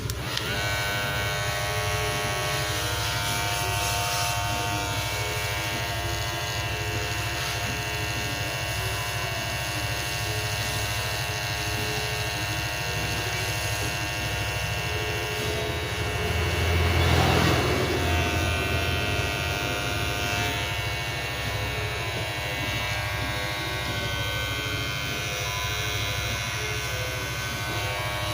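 Magic Clip electric hair clipper running with a steady buzzing hum. A little past halfway it gets louder and deeper for about two seconds, then settles back.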